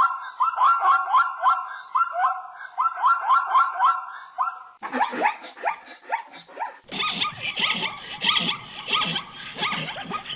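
Zebras calling: quick repeated runs of high, yelping bark-like notes, the braying bark of a zebra. The recording changes abruptly about five seconds in and again about seven seconds in, where different recordings of the calls are spliced together.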